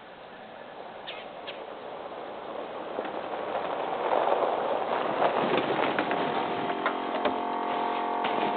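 Home-built PVC copy of a Nathan Airchime M3 three-chime train air horn: a rush of air swells over the first few seconds, then the horns sound a steady multi-note chord from about halfway in.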